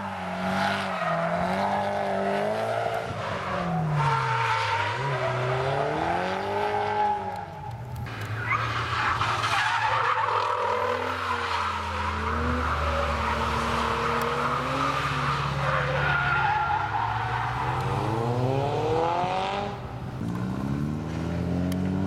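Drift cars sliding through corners in tandem, engines revved up and down again and again with tyres squealing and screeching. Near the end, an engine winds up steadily in pitch.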